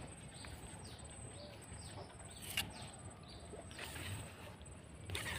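A bird calling with short falling chirps, repeated about twice a second, over a faint steady high insect trill. Brief soft rustling noises come about four seconds in and again near the end.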